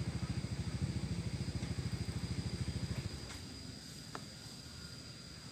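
A small engine running nearby with a rapid, even putter that stops abruptly about three seconds in. After that only quieter outdoor background remains, with a faint steady high whine.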